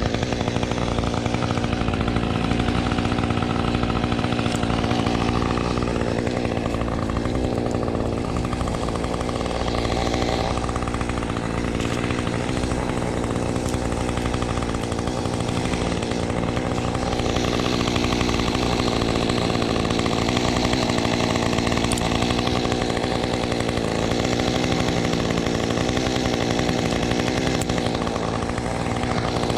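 Husqvarna T435 top-handle two-stroke chainsaw running steadily, its engine note holding with only small shifts.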